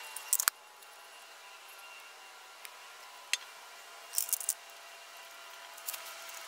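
Light metal clinks and taps as the tools and the milling machine's knee elevation screw assembly are handled. There is a quick cluster of clicks at the start, two single taps around the third second, a rattling run of clicks about four seconds in, and a couple more near the end.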